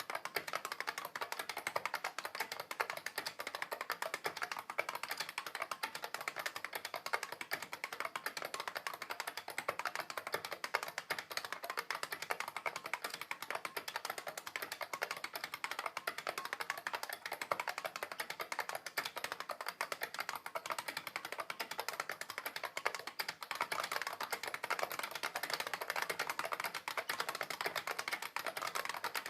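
IBM 3278 beam spring keyboard being typed on fast and without pause: a dense, steady stream of sharp key clicks.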